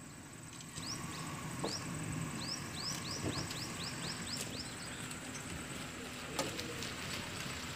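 A bird calling with short, high notes that each fall in pitch, a few scattered ones and then a quick run of about four a second, over a faint steady outdoor background.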